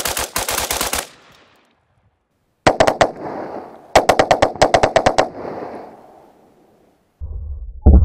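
FN-15 5.56 mm rifle with a binary trigger firing rapid strings of shots, a round on each pull and each release of the trigger. A fast burst of about ten shots comes first; after a pause two more strings follow, duller and echoing. Near the end a low rumble and a sharp crack come in.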